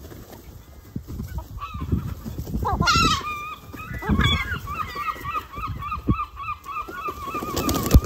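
Herring gulls calling: one loud gliding call about three seconds in, then a steady run of short, repeated calls at about three a second. Wing flaps and low thumps come from the flock, loudest near the end as birds take off.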